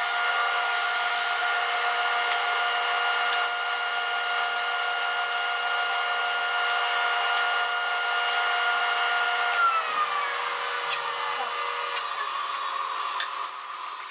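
Stationary disc sander running, its motor whining steadily while a pine block is sanded against the disc. About ten seconds in the machine is switched off and the whine drops in pitch as it spins down.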